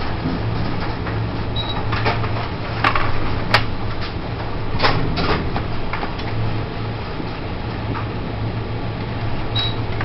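A ship's steady low engine hum under the rush of wind and storm sea. A few sharp knocks and rattles come in the middle.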